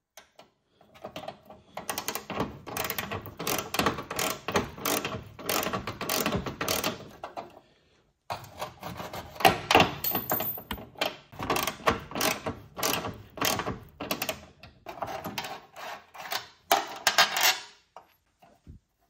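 Hand tool turning a bolt to draw a nutsert flush into steel sheet metal, with a bolt, nut and washers used as a makeshift dimple die: rapid metallic clicking and rattling in two long runs with a short break about eight seconds in.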